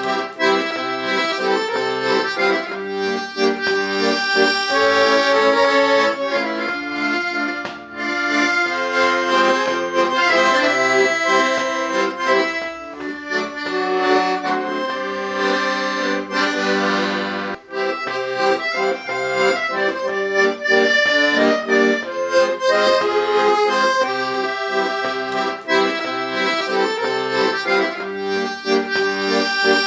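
Accordion playing a tune: sustained reed chords and melody notes changing throughout, with short dips in level about 8 and 17 seconds in.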